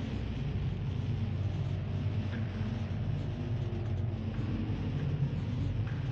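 Dark-ambient industrial noise drone: a steady low rumble with a hiss above it, and no clear beat or melody.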